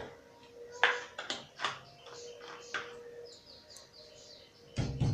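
Scattered light clicks and knocks of kitchen utensils against a pan, with a short run of high bird chirps in the background about three and a half seconds in and a dull knock near the end.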